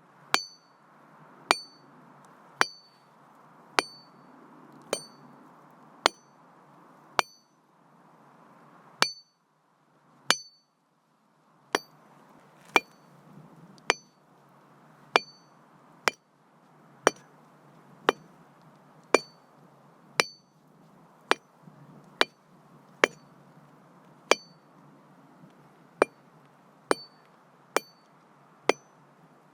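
A metal hammer striking masonry in slow, regular blows, about one a second, each a sharp crack with a brief high ring from the hammer head. There is a short pause a little past a third of the way in.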